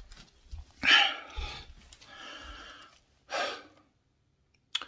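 A man breathing loudly close into a handheld microphone: a sharp breath about a second in, a longer, softer breath after it, and another short breath just past three seconds.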